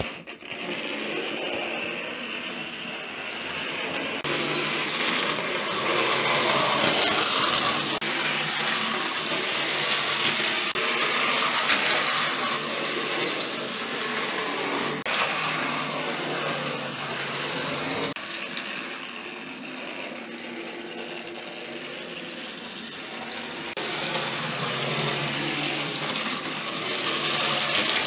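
OO-gauge Hornby Caley Single 4-2-2 model locomotive running at speed on a layout: the whirr of its small electric motor and the rattle of wheels on the track. The sound rises and falls in loudness.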